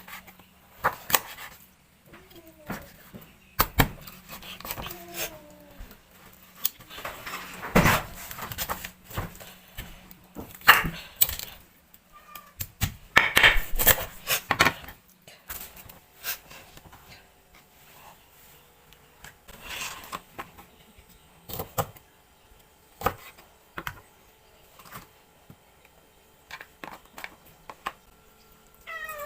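Irregular clicks, knocks and clatter from handling kitchen things such as containers, lids or bags, with a cat meowing faintly now and then and once more clearly near the end.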